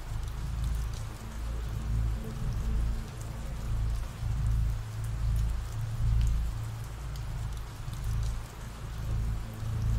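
Steady ambient rain, a soft even hiss with faint drop ticks, over a low rumbling drone that swells and fades every second or two.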